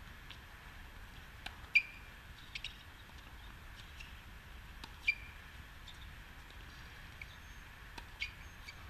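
Tennis ball being struck by rackets during a rally: sharp, short pocks with a brief ring, the loudest under two seconds in and others about five and eight seconds in, with fainter ticks of bounces and distant hits between.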